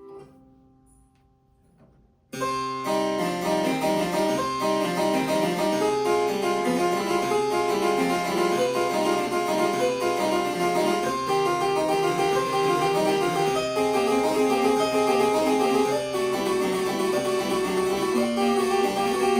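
Harpsichord music, plucked notes in a quick running line, starting abruptly about two seconds in after a faint single note.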